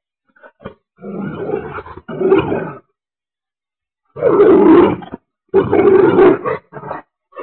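A dog growling in several loud, rough bursts, each about a second long, the loudest coming in the second half.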